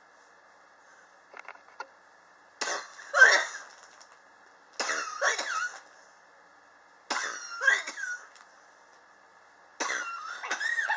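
A person coughing in four separate fits, each a sudden harsh burst of about a second with a rasping voice in it, spaced a couple of seconds apart. It is a chronic cough that has persisted since the summer of 2016.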